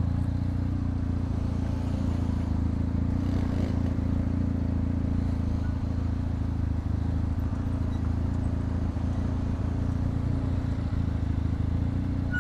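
Motorcycle riding at a steady pace: engine and road noise heard as an even low hum, with no revving or gear changes.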